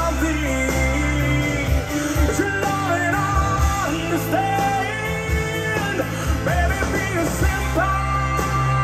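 Rock song with a singing voice, played back from a Type II cassette on an Aiwa AD-F990 cassette deck.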